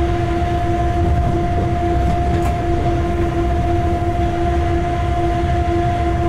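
Locomotive running light along the track, heard from inside its cab: a steady low rumble with two constant humming tones, the lower one pulsing slightly.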